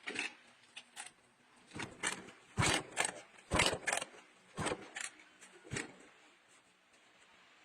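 A run of irregular knocks and scrapes, about eight in a few seconds, the loudest in the middle, dying away near the end.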